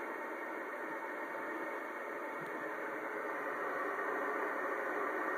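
Steady static hiss from an HF amateur radio receiver tuned to the 10-metre band in upper sideband, with no voice coming through: the distant station has sunk into the band noise.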